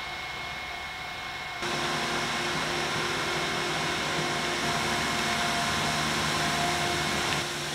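A steady motor drone with a few steady tones in it. It gets louder about a second and a half in and drops back near the end.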